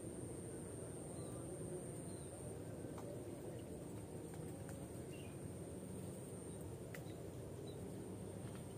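Quiet outdoor ambience: a steady low rumble under a steady high-pitched whine, with a few faint bird chirps and occasional small clicks.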